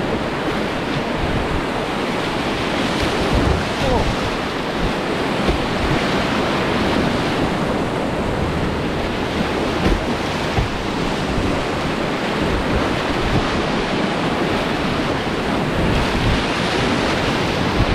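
Whitewater rapids rushing and churning around a kayak, picked up close to the water by a boat-level camera, a steady dense roar of moving water. Irregular low thumps of wind buffeting on the microphone run through it.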